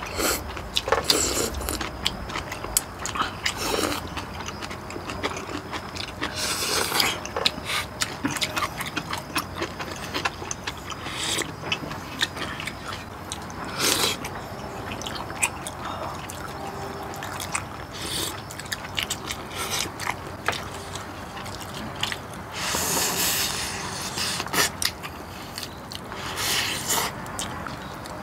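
Close-up eating sounds: chewing and slurping of spicy mala xiang guo noodles and gamjatang pork back bone, with chopsticks clicking against plates and bowls. Several longer slurps stand out among the small clicks.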